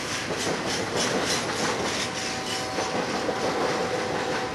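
BNSF double-stack container train rolling past, its wheels clattering over the rails in a steady rhythm of about three beats a second. A faint steady wheel squeal joins about two seconds in.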